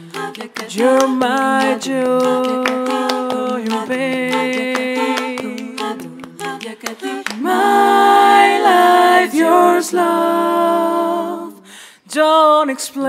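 Female a cappella vocal group singing in close harmony, holding and sliding between sustained chords, with short sharp clicks between the notes. The voices drop out briefly near the end, then come back in together.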